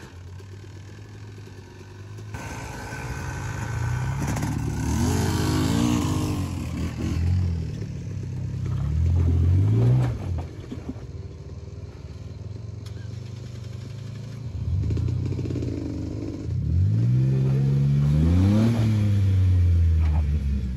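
Off-road vehicle engine revving hard in repeated surges, its pitch climbing and falling three times, with a steady low running note between the revs.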